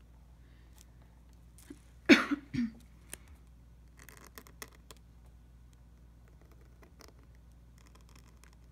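A person coughs once, briefly, about two seconds in; this is the loudest sound. After it come faint scratches of a pointed calligraphy dip-pen nib on paper as a letter is written.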